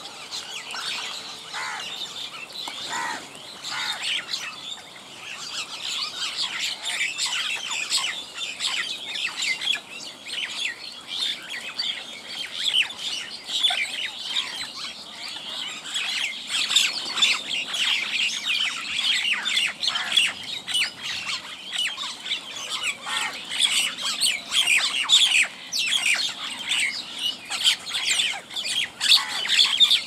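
A large feeding flock of common mynas, pied mynas and house crows calling over one another in a continuous dense chatter of squawks and chirps, louder in the second half.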